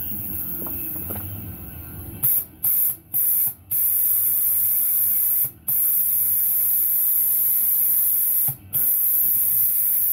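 Compressed air hissing steadily from an air hose chuck into the valve stem of a 5-ton military truck combat wheel whose Schrader valve core is out, blowing air in to pop the rim's lip loose. The hiss starts about two seconds in after a low rumble, and cuts out briefly five times.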